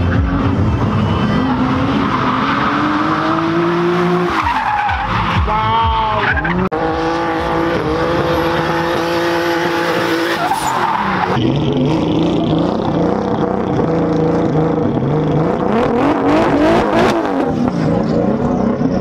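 Drift cars sliding at speed, their engines revving up and down again and again over the rush of skidding tyres.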